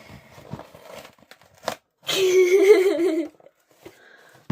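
Packaging from a book mailer being torn and crinkled, with a sharp click about one and a half seconds in. Midway a louder drawn-out, wavering voice-like sound lasting about a second.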